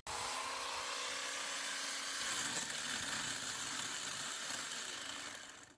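Corded electric chainsaw running steadily while cutting through woody shrub stumps, a constant motor whine over chain noise that fades near the end.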